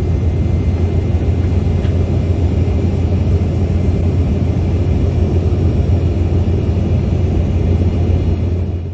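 Steady low rumble of engine and airflow noise inside an airliner cabin in flight, after the seatbelt sign has gone off. It fades out quickly at the very end.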